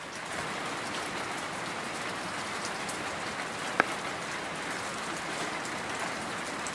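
Steady rain falling, an even hiss of drops, with a single sharp tap a little past halfway.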